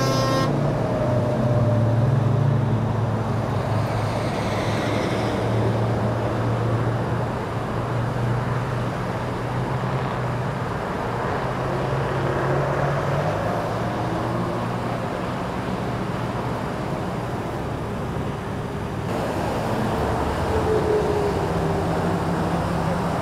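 Steady freeway traffic noise, cars and trucks passing at speed, over a low steady engine hum. A vehicle horn's long note cuts off in the first half-second, and the sound shifts abruptly about 19 seconds in.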